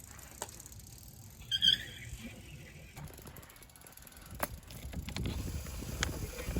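Vintage Schwinn Continental ten-speed road bike setting off: a few mechanical clicks and a short squeak about a second and a half in, then a low rush of wind and rolling noise that builds as the bike gets under way.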